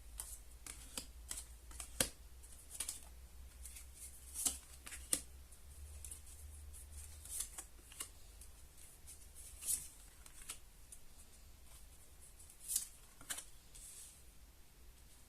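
Tarot cards being handled and laid out on a table: irregular soft clicks and brief swishes of card against card, over a faint low hum.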